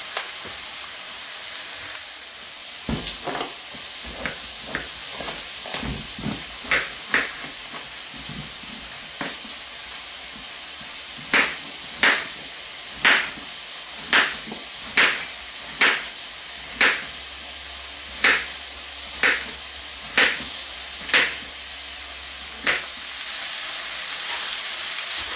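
Carrots and bell pepper sizzling in hot oil in a pan, a steady hiss, while a knife chops a zucchini on a cutting board: scattered cuts at first, then a steady run of chops about one a second.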